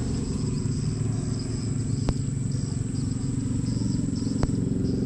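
Small boat's outboard motor running steadily with a low, fast throb. Two faint clicks come about two seconds and four and a half seconds in.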